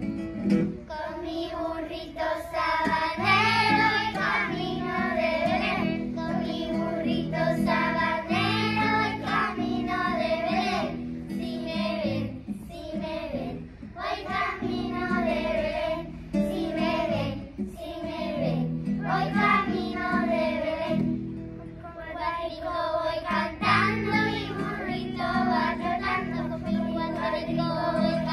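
A group of young children singing a song together in unison, accompanied by strummed acoustic guitar.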